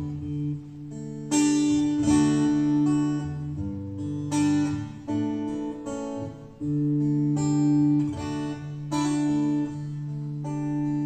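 Acoustic guitar strumming chords, each left ringing before the next, as an instrumental passage between verses of a song.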